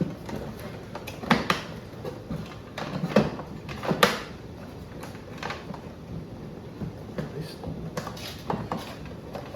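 Irregular knocks, clicks and scraping of parts and packing being handled and lifted out of a shipping case, with about half a dozen sharper knocks spread through.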